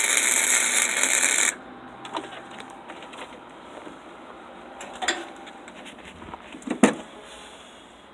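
Flux-core wire welding arc from a Lincoln SP135 welder crackling loudly, cutting off suddenly about a second and a half in as the pass on the T-joint ends. A few light clicks and knocks follow.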